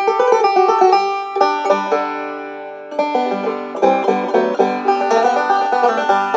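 Gold Tone OB-3 five-string resonator banjo picked bluegrass-style in fast rolls, its traditional setup giving a direct, clean and bright tone. The picking eases about two seconds in, letting the notes ring, then picks up again.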